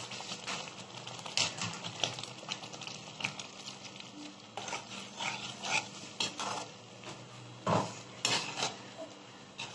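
Slotted metal spatula scraping and clinking against a kadai while stirring thick curry gravy, with a louder clatter of metal on the pan about eight seconds in.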